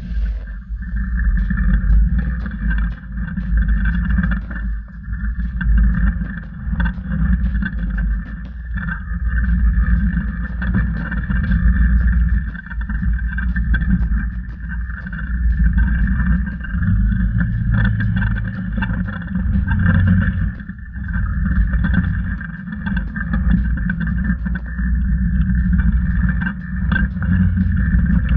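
Polaris RZR 900 XP side-by-side's parallel-twin engine running at low trail speed, heard from on board, with frequent knocks and rattles from the vehicle over rough ground.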